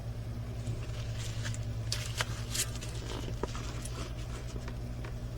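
Light crinkling and scattered small clicks as a diamond painting kit is handled, with a few sharper ticks about two seconds in, over a steady low electrical hum.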